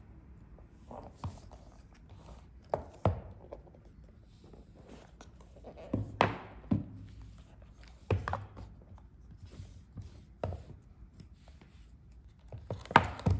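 Cardboard watch packaging handled on a wooden table: scattered light knocks and taps as the box is slid open and the inner tray lifted out, the loudest pair near the end.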